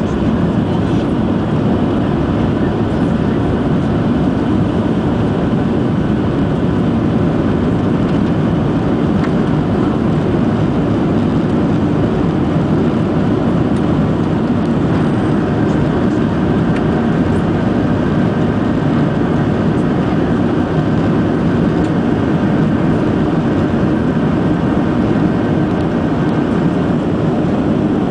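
Steady loud roar of a Boeing 737-700's CFM56 turbofan engines and rushing air, heard inside the passenger cabin during the climb after takeoff. A faint steady whine joins about halfway through.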